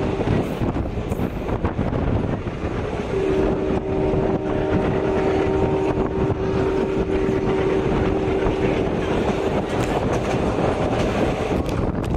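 Passenger express train running, a steady rumble and rattle of the coaches. A steady tone starts about three seconds in and holds for roughly six seconds.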